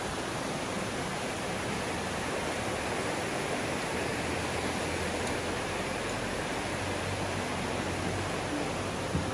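Mountain stream rushing over rocks: a steady, even rush of water, with a single knock near the end.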